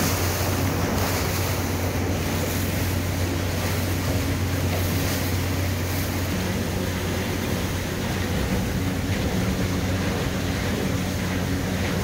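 Outboard motor on a small aluminium boat running steadily under way, its low hum mixed with the rush of the wash and wind on the microphone. About six seconds in the engine's note shifts higher.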